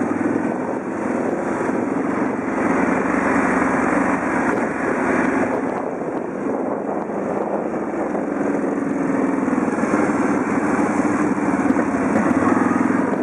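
Bombardier 800 quad bike's V-twin engine running steadily at low revs, swelling slightly near the end.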